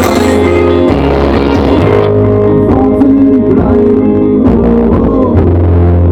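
Pop-rock band playing an instrumental passage, with guitar and a steady bass line and no vocals.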